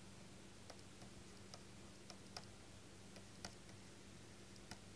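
Near silence broken by about ten faint, irregular light ticks of a stylus pen tapping on a writing tablet as words are handwritten, over a steady low hum.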